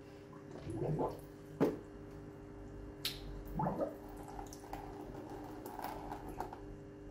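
Hands moving in aquarium water while a siphon hose and gravel-vacuum tube are set in the tank, making small splashes and drips. There is a sharp click about a second and a half in.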